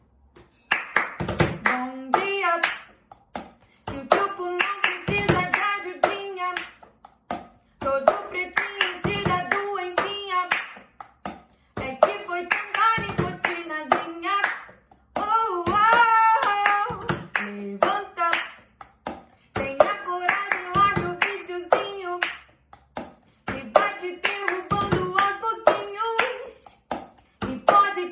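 A voice singing or vocalising together with sharp claps or hits, the same roughly four-second phrase repeating over and over with short gaps between.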